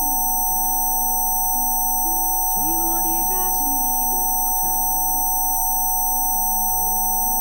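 Several steady pure tones, one in the middle range and others high and thin, held without a break over soft music whose held notes change every second or so.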